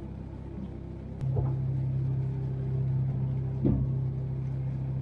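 Low rumble inside a small boat cabin. A steady low hum comes on about a second in, and two dull knocks sound, one shortly after the hum starts and one past the middle.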